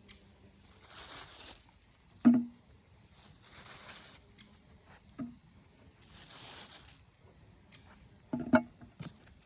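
Food-preparation handling sounds: three short swishing scrapes alternating with sharp knocks, one knock near the end struck two or three times in quick succession.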